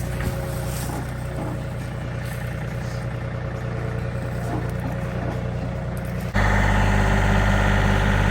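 John Deere tractor engine running steadily, then suddenly much louder and heavier about six seconds in.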